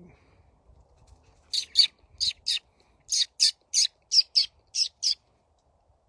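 Florida scrub-jay giving a quick series of about eleven short, harsh calls, mostly in pairs, starting about a second and a half in and stopping about five seconds in.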